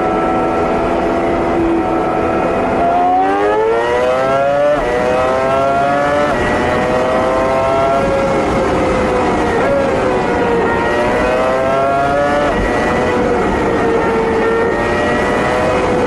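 Ferrari engine heard from inside the cabin at high speed: steady, then accelerating hard, the pitch climbing and dropping back at each upshift, holding a steady cruise, then pulling hard again through another upshift.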